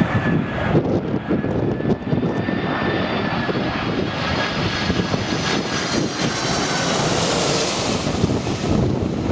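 Jet airliner on final approach passing low overhead, its engines whining and the hiss of the jets building to its loudest about seven seconds in. Strong wind buffets the microphone under a low rumble throughout.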